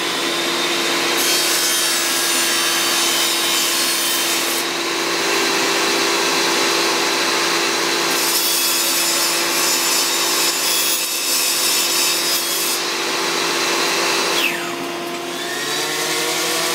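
Table saw running steadily, ripping thin slivers off a scrap of teak in two cuts, the first from about a second in to about four and a half seconds, the second from about eight to thirteen seconds. Near the end the saw winds down and an orbital sander starts up.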